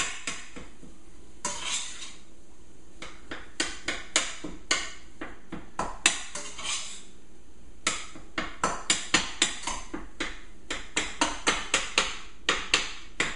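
A cooking utensil tapping and scraping against a stainless-steel skillet as ground beef is broken up while it browns. The taps come in irregular clusters and quicken to about three a second in the second half.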